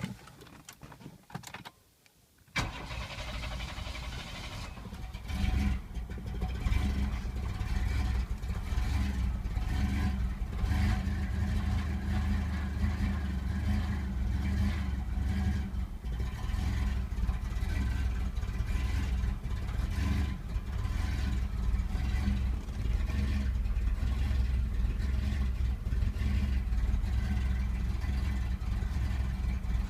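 Chevrolet S-10 Blazer engine cranking a couple of seconds in, catching and settling to an idle a few seconds later. The idle runs with uneven, pulsing loudness: the hard start and rough idle the owner asks about.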